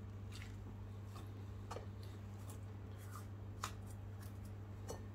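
Faint handling sounds from hands squeezing grated potato over a metal mesh strainer: a few soft, short ticks spread out, over a steady low hum.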